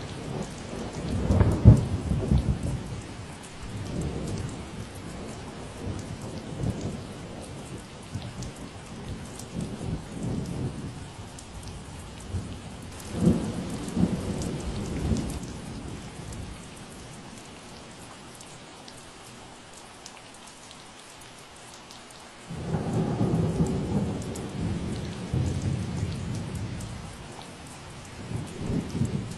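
Steady rain falling, with low rolling rumbles of thunder three times: about a second in, around the middle, and a longer one in the last third.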